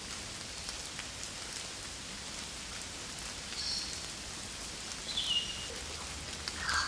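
Steady rain falling in woodland: an even hiss with individual drops ticking through it. Two brief high bird chirps come through the rain, the second about five seconds in and falling in pitch.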